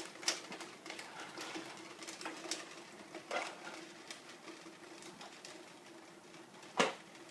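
Irregular light taps and clicks over a faint steady hum in a small room, with one sharper knock near the end.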